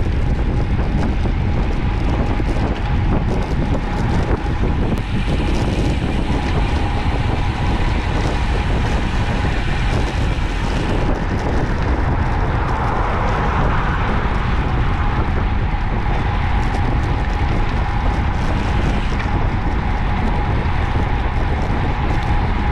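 Steady rush of wind over the microphone of a camera riding on a road bicycle at about 35 to 40 km/h, mixed with road noise.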